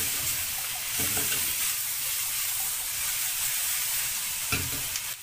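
Sliced onions and whole spices sizzling in hot oil in a frying pan while being stirred with a silicone spatula, the onions wilting as they sauté. A steady frying hiss runs under the stirring.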